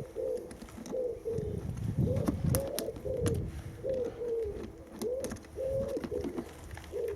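A pigeon cooing: a run of low coos repeated in phrases, with scattered light clicks.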